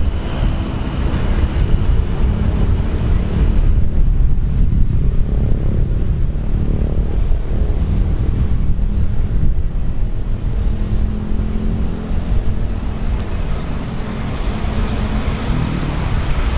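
Steady low rumble of motor-vehicle engines, with an engine tone rising and falling a few times across the middle.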